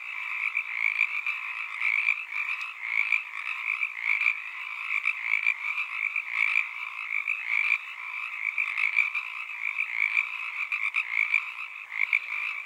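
A dense chorus of frogs, many overlapping croaking calls going on without a break.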